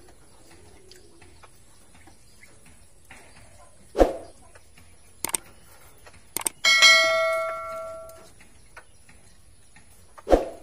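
Subscribe-button animation sound effects: a short whoosh about four seconds in, two clicks, then a bell chime that rings out for about a second and a half, and another whoosh near the end.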